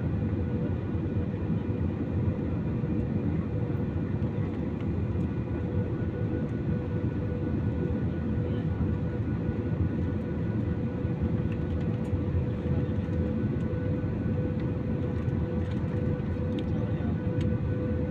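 Airliner cabin noise on final approach: the jet engines and rushing airflow make a steady drone with a constant hum tone running through it.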